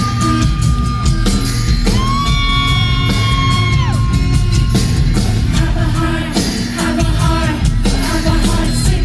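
Loud band music with heavy drums and bass, and a long held sung note about a third of the way in that trails off downward after about two seconds.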